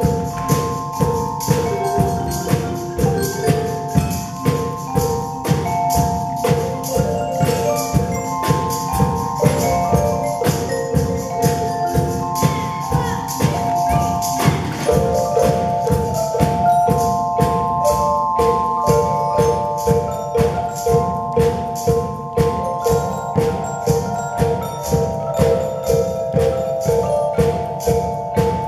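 A youth percussion ensemble playing Orff-style barred mallet instruments with mallets, a melody of ringing pitched notes over a steady beat from a Yamaha drum kit and a hand drum.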